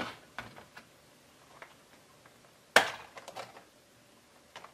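Small clicks and knocks of a diecast toy train being handled on a plastic toy turntable and track, with one sharp clack about three seconds in followed by a few lighter taps.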